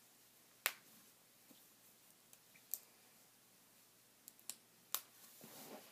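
Snap fasteners on a baby sleeper being pressed shut: a handful of sharp clicks spread over several seconds, with a soft rustle of fabric near the end.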